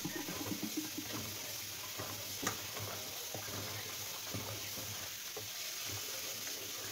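Kitchen tap running into a plastic bowl of cubed watermelon rind while hands rub and swish the pieces in the water, rinsing off baking soda, with small knocks of the pieces and a sharper click about two and a half seconds in.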